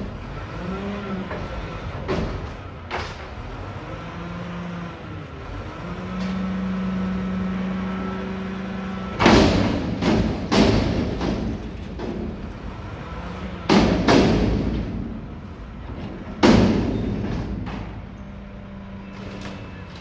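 Mack McNeilus front-loader garbage truck running, its engine speeding up to drive the hydraulic arms as they lift a dumpster over the cab. The dumpster is emptied into the hopper with a series of loud metal bangs, a cluster about nine seconds in and more around fourteen and sixteen seconds, before the engine settles back down.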